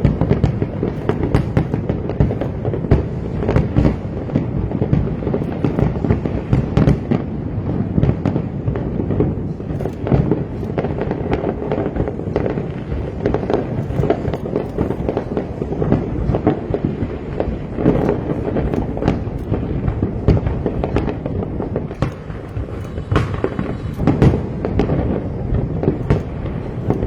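Aerial fireworks going off thickly and without pause: a continuous volley of bangs and crackles overlapping one another.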